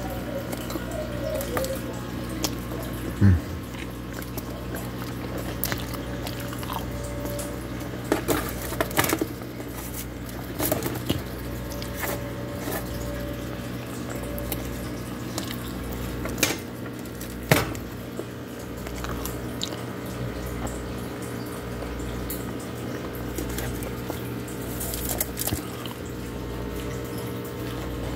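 A metal fork scraping and clicking against a foil-lined pizza pan a handful of times, over a steady background hum and hiss.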